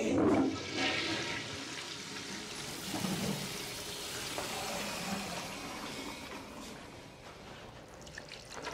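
Water rushing and running, slowly fading away.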